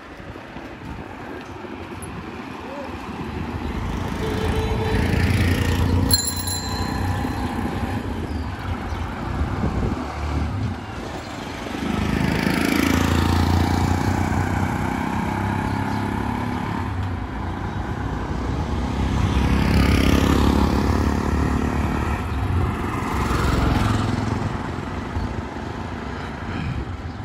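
Street traffic: several motor vehicles pass one after another, their engine rumble swelling and fading. A short high ringing tone comes about six seconds in.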